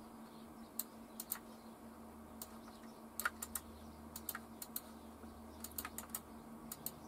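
Computer mouse and keyboard clicks: about seventeen sharp, separate clicks in small groups of two or three, over a faint steady hum.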